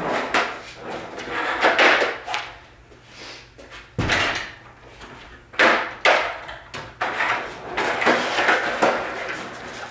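Skateboard wheels rolling on a concrete floor, with sharp wooden clacks and slaps of the board as it is popped and lands during variel kickflip attempts. The loudest knock comes about four seconds in, followed by a few more between five and a half and seven seconds.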